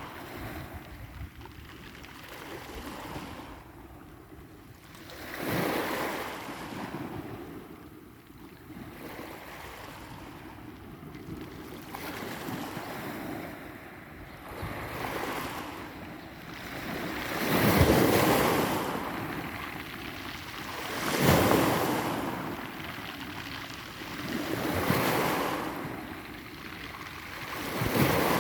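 Sea waves breaking on the shore and washing back. The surges grow louder in the second half, coming about every three and a half seconds.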